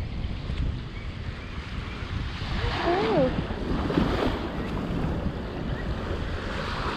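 Strong wind buffeting the microphone over surf washing in, a steady rumbling rush. About three seconds in comes a short wavering call, rising and falling in pitch.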